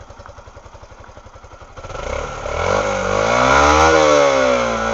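Yamaha YBR125's single-cylinder four-stroke engine idling, then revved up about two seconds in, rising in pitch to a peak and falling back toward idle.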